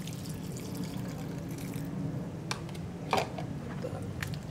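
Lime juice poured from a plastic tub onto chopped vegetables and fish in a bowl, splashing as it runs in. Two short knocks come about two and a half and three seconds in.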